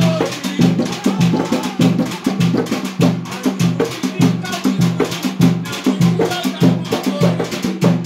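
Chigoma drumming: rope-tensioned double-headed drums struck with sticks and hands in a steady beat of about two strokes a second, with sharp rattling percussion clicking over it.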